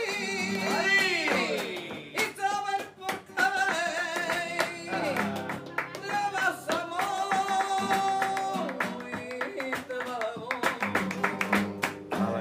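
A woman singing flamenco por bulerías, with long ornamented notes, one held with a wavering pitch for a couple of seconds in the middle. She is accompanied by sharp rhythmic handclaps (palmas).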